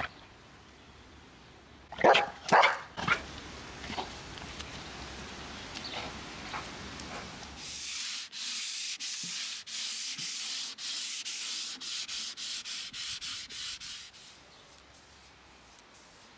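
A dog barks three times in quick succession about two seconds in, followed by a few quieter barks. From about eight seconds, a sanding block is rubbed by hand over a painted drawer front in quick back-and-forth strokes, about three a second, for some six seconds: a light sand between coats of paint.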